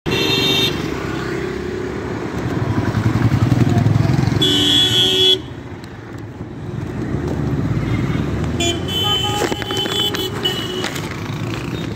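Road traffic with engines running, and vehicle horns honking: a short honk at the start and a longer one about four and a half seconds in, with fainter horn tones around nine to ten seconds.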